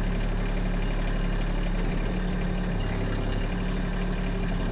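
Kubota B2301 compact tractor's three-cylinder diesel engine running steadily at an even, low-pitched drone.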